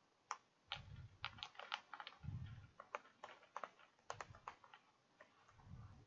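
Faint typing on a computer keyboard: irregular keystroke clicks.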